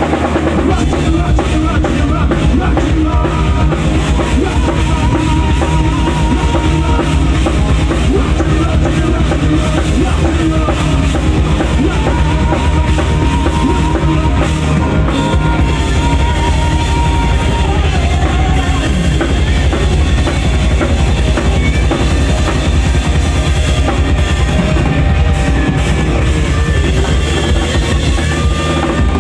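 A rock band playing live and loud: distorted electric guitars, bass guitar and a full drum kit with a driving bass drum, and a lead line of long held, wavering notes in two stretches, with no singing.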